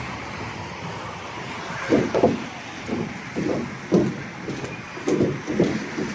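Footsteps walking at an uneven pace, short thumps about half a second apart, over a steady background hiss.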